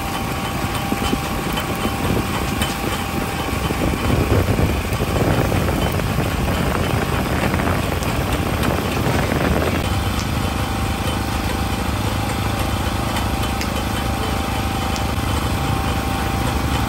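A small engine or motor running steadily with a continuous hum that turns smoother about ten seconds in.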